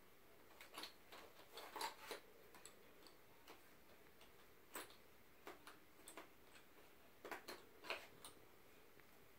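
Colored pencils clicking against each other inside a cardboard box as a small child rummages through it: irregular, soft clicks and taps.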